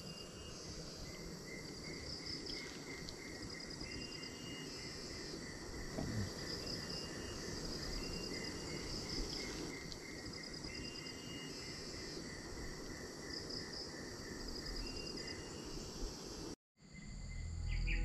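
Rainforest insects chirping over a low steady hiss: a high pulsed trill comes and goes, and a lower chirp repeats about three times a second. Near the end the sound cuts out briefly and soft music comes in.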